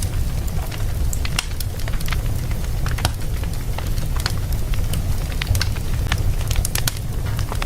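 Wood fire burning in a fireplace: a steady low rumble of flames with many sharp, irregular crackles and pops.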